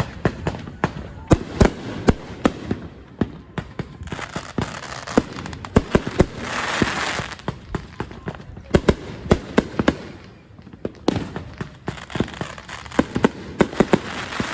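Fireworks going off: a rapid, irregular string of sharp bangs and pops, with a hissing burst about six seconds in and a short lull around ten seconds.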